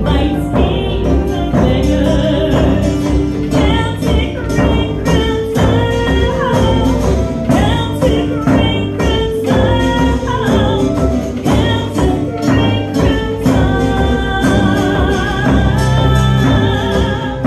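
A woman singing a melody over strummed acoustic guitar, live, holding one long note near the end.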